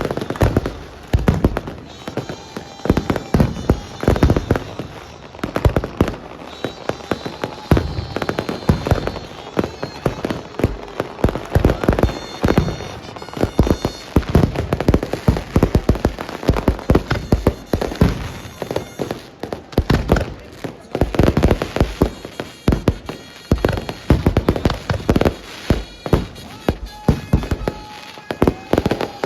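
Fireworks going off in a dense, continuous barrage of sharp bangs, several a second at irregular intervals.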